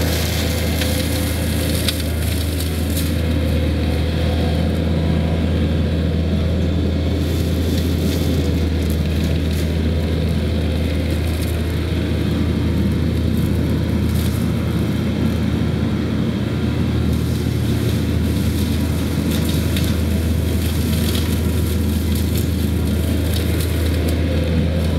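Takeuchi TL130 compact track loader's diesel engine running steadily under load while its hydraulic forestry mulcher drum spins. Crackling and splintering come and go as the mulcher chews through brush.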